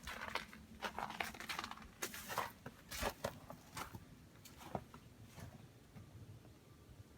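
Snow crunching in a string of irregular sharp crunches that thin out and stop about five and a half seconds in.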